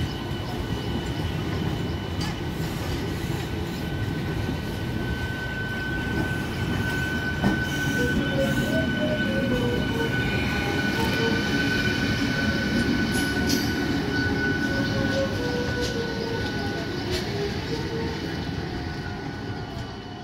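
Eastern Railway electric multiple-unit local train running past close by: a steady rumble of wheels on rail with a steady high-pitched whine and scattered clicks as the wheels cross rail joints. It fades near the end as the last coach goes by.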